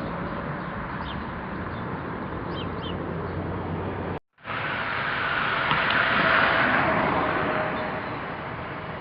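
Street ambience: a steady traffic hum with faint bird chirps. After a brief cut about four seconds in, a vehicle passes, swelling and then fading.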